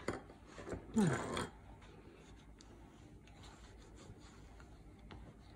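Faint rubbing and light scraping of a bone folder pressed and slid along a canvas book spine, with small soft ticks. A brief murmured hum, falling in pitch, about a second in.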